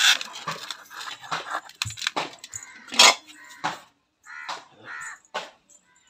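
Steel plate and aluminium pan knocking and clattering together as they are handled, in irregular knocks that are loudest at the start and about three seconds in. A few short crow caws come near the end.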